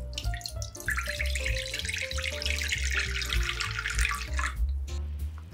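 A thin stream of water poured from above into a nonstick frying pan, splashing steadily for about three and a half seconds and stopping abruptly, over background music.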